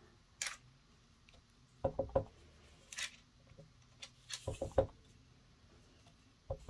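Clear acrylic stamp block tapped on a Stampin' Up ink pad and pressed onto cardstock: soft, faint taps in small clusters of three to five, with single taps and brief paper rustles between.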